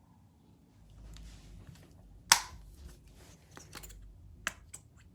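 A sharp click or knock a little over two seconds in, then several lighter clicks and taps, over a faint low rumble: small objects being handled.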